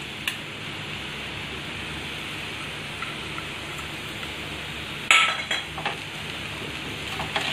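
Potato, paneer and pea stuffing sizzling steadily in an aluminium kadai, with a metal slotted spatula clinking and scraping against the pan in short clatters about five seconds in and again near the end.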